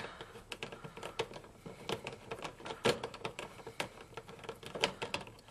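Irregular light clicks and taps from hands and tools working at the stove's power-cord terminal block. The two loudest come about three and five seconds in.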